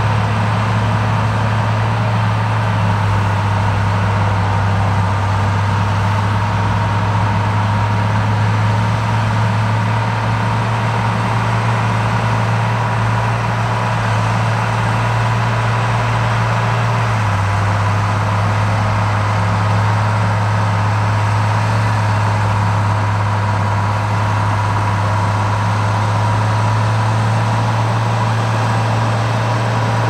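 Heavy diesel machinery engine running at a steady low hum, with a faint steady whine above it and a slight shift in tone about halfway through.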